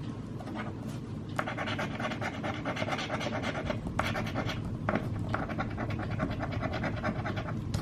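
A scratch-off lottery ticket being scratched: quick, rapid scraping strokes in three bursts with short pauses between them, as the latex coating is rubbed off.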